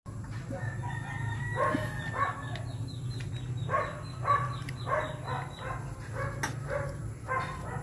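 Repeated short animal calls, in clusters of two or three about half a second apart, over a steady low hum.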